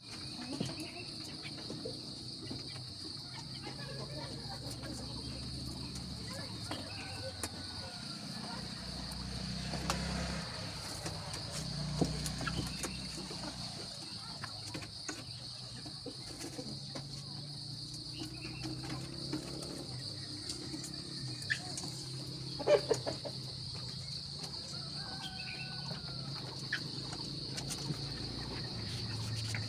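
A steady high-pitched drone of insects chirring, with faint chicken clucks and a few sharp taps of pecking or scratching; the loudest taps come about three-quarters of the way through.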